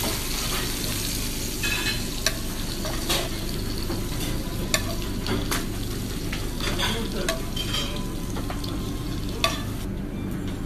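Meat frying in oil in a pan: a steady sizzle over a low hum, broken by a few sharp clicks.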